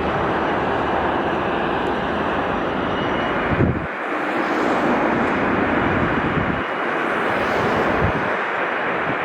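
Bombardier Global Express XRS business jet's twin Rolls-Royce BR710 turbofans at takeoff power, a loud steady noise. Low rumbles of wind on the microphone come and go.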